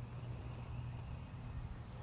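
Quiet rural outdoor background: a steady low rumble and a faint hiss, with no distinct calls or other events.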